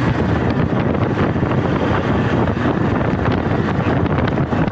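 Steady wind rush and motorbike road noise while riding, picked up by a Realme Buds Air 5 earbud's microphone inside a helmet.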